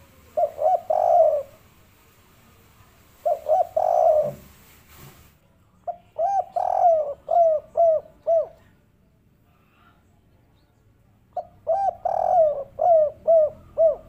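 Spotted dove cooing: four phrases of short coos at one pitch, with pauses between them. The last two phrases are longer and end in a run of separate trailing notes.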